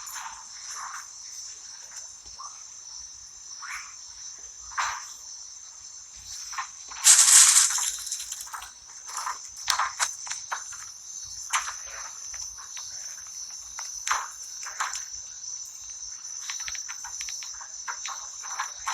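A steady high-pitched insect chorus, with scattered short knocks and rustles. A loud, brief burst of noise comes about seven seconds in.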